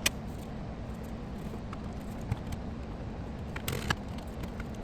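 A graphics card being handled and pushed into its motherboard slot: a sharp click at the start, a faint tick, and a short scraping rustle near the end, over a steady low hum.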